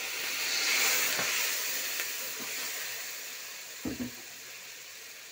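Onion and spice masala sizzling and hissing in an iron kadhai as it is stirred with a metal slotted spatula. The hiss is strongest about a second in and slowly fades, with a few light taps of the spatula and a short double knock on the pan near four seconds.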